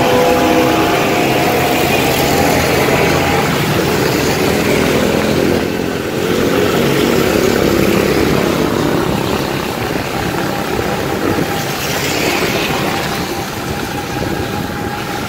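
Motor scooter engine running steadily while riding through city streets, over a continuous rush of wind and road noise; it eases off a little near the end.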